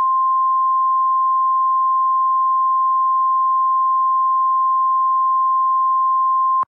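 Emergency broadcast alert tone: a single pure, steady high-pitched beep held unbroken for several seconds, cutting off suddenly near the end.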